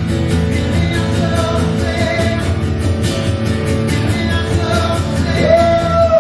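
Live worship band playing a steady rock-style song with bass and drums, and a voice rising into a long held sung note near the end.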